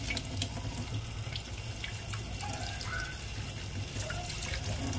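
Kitchen tap running a thin, steady stream into a stainless steel sink, splashing over chicken innards held under it by hand.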